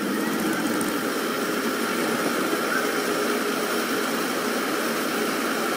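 Fire engine idling in a steady, even drone, with a few faint constant tones over it.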